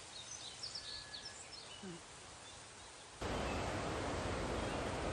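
Small birds chirping and singing over quiet woodland background, then, about three seconds in, an abrupt switch to the loud, steady rushing of a waterfall.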